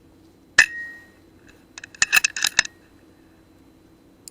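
A .177 PCP air rifle (FX Dreamline Lite) fires with a sharp crack and a short metallic ring, then a quick run of metallic clicks and clinks about a second later as the action is cycled for the next shot.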